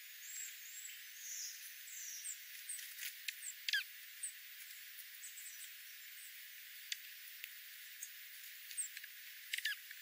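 Small ground-feeding songbirds (dark-eyed juncos and sparrows) giving short, high chip calls over a steady hiss, with scattered sharp clicks and taps as they peck seed on gravel. A sharper chip just under four seconds in is the loudest sound.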